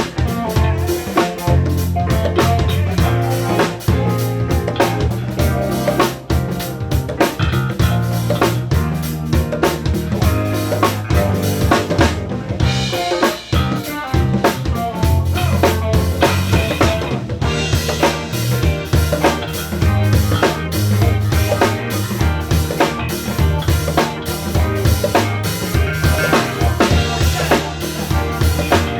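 Live band playing an instrumental groove: a drum kit with kick, snare and rimshots keeping a steady beat over a changing bass line.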